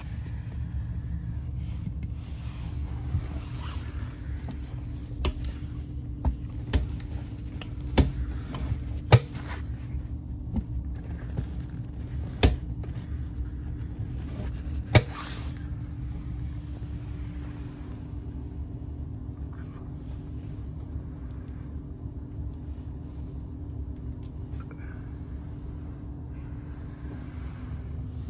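Cabin sound of a DB class 612 diesel multiple unit: a steady low rumble with a steady drone from the diesel running. About ten sharp, irregular clicks and knocks come through the first half, the loudest just over half way through.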